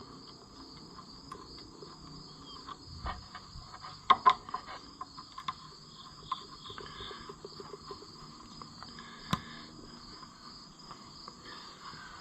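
Scattered clicks and knocks of a part being fitted back onto a Ferguson 30 tractor by hand, a quick cluster about four seconds in and one sharp click near nine seconds. Crickets chirp steadily underneath.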